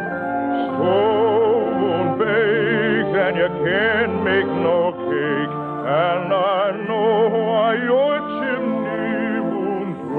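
Operatic-style singing over an orchestra: the voice has a wide vibrato and slides up into several notes. It is an old radio-broadcast recording with no high treble.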